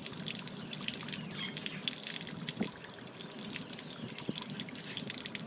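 Water draining in a steady stream from the open stern drain of a Mako Pro Skiff's hull and splashing onto concrete, with many small droplet ticks. It is water that has collected in the hull.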